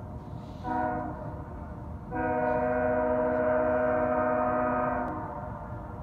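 Freight locomotive air horn on a BNSF manifest train: a short blast, then a long blast of about three seconds, several tones sounding together as a chord.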